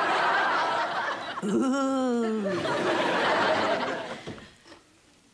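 Sitcom studio audience laughing, with one drawn-out voice gliding down in pitch about a second and a half in; the laughter dies away about four seconds in.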